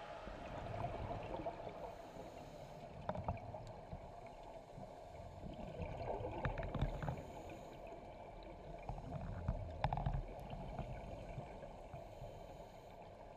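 Underwater sound through a camera housing: scuba divers' regulator bubbles gurgling over a low rumble, with louder bursts of exhaled bubbles about every three to four seconds.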